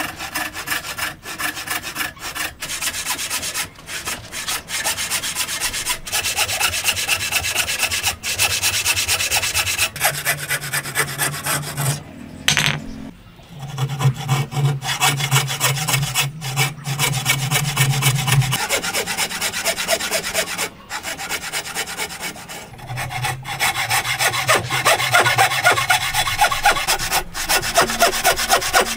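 A hand tool working wood in quick, rhythmic rasping strokes, about two or three a second, broken by short pauses.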